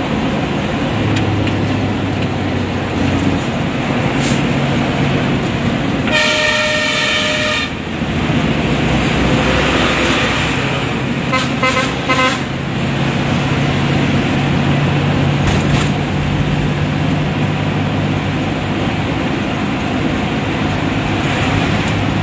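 Steady bus engine and road noise heard from inside the cab at highway speed. A loud bus horn gives one long blast, about one and a half seconds, some six seconds in. About four seconds later it gives a quick run of short toots.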